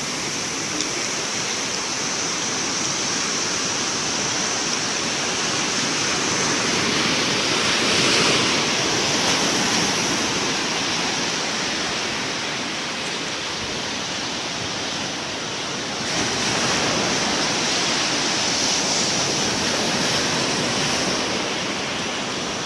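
Ocean surf washing in steadily, swelling louder about eight seconds in and again from about sixteen seconds.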